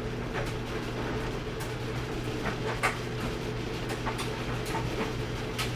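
Admiral AED4475TQ1 electric clothes dryer running with a load tumbling in the drum: a steady motor hum with irregular light knocks.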